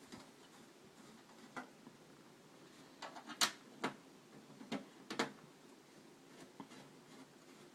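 A handful of sharp, light clicks and knocks of a screwdriver and screws against a desktop computer's metal case as the side screws are put back in, the loudest about halfway through.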